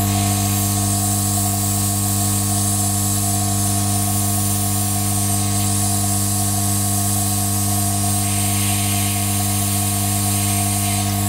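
Hot air rework gun blowing hot air onto a processor's circuit board: a steady fan hum with an even rushing hiss of air, the hiss a little stronger about eight seconds in.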